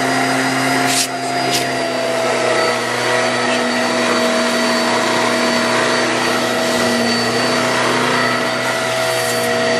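Eureka Airspeed Exact Pet bagless upright vacuum running in tools mode, drawing air through its hose and crevice tool over carpet: a loud, steady motor whine at an even pitch. Two short clicks sound about a second in.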